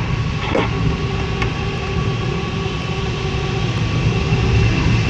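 Steady rush of airflow over a LAK17B glider's canopy and fuselage, heard from inside the cockpit during a fast glide, with faint steady tones over it and a brief sound about half a second in.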